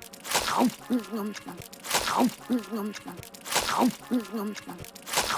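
Cartoon eating sounds on a short repeating loop, about every second and a half: a quick falling whoosh as a whole sub sandwich is crammed into the mouth, then a few muffled, closed-mouth 'mm' chewing noises from a girl's voice.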